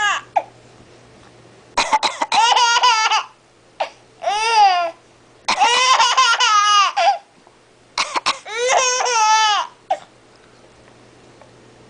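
A baby laughing in four high-pitched bursts, each set off by an adult's short fake coughs.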